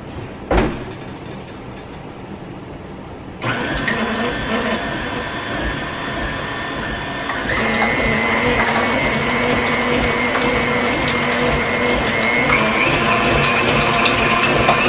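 A knock, then an electric kitchen mixer switches on about three seconds in and runs steadily, beating a pumpkin and egg batter; its pitch steps up twice, as if turned to higher speeds.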